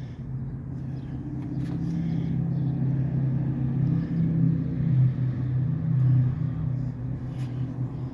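A machine running with a steady low hum that swells a little through the middle, with a couple of faint clicks or knocks.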